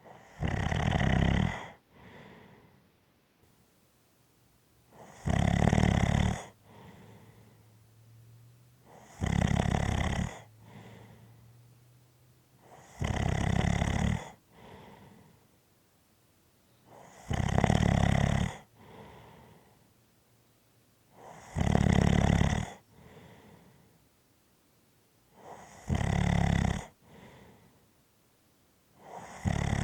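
Rhythmic snoring: a loud snore about every four seconds, each followed by a fainter, short breath.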